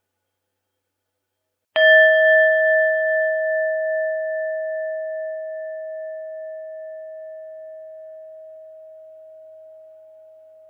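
A Buddhist bell struck once about two seconds in, then left to ring: a clear, steady tone with higher overtones that fade within a few seconds, while the main tone rings on, slowly wavering and dying away.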